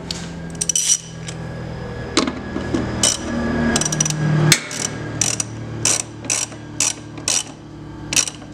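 Socket ratchet wrench with a half-inch socket clicking in short back-and-forth strokes as it runs a nut down onto a positive terminal stud: a series of sharp clicks, coming about every half second in the second half.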